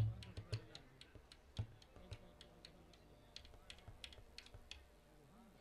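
Drum music stops, with a last couple of low drum thumps in the first two seconds, leaving faint, irregular sharp clicks, a few each second.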